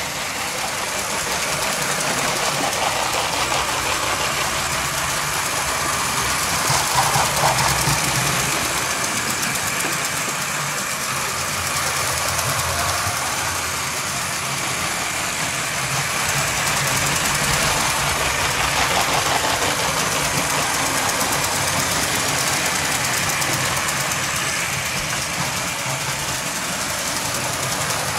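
Lego toy train running along plastic track: a small electric motor whirring steadily, with the wheels rattling on the rails.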